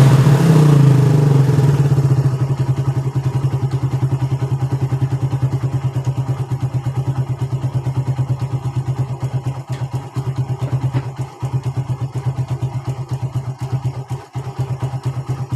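Suzuki Satria FU 150 motorcycle's single-cylinder four-stroke engine, heard through its stock exhaust, comes down from a rev in the first two seconds and then settles into a steady, deep, pulsing idle.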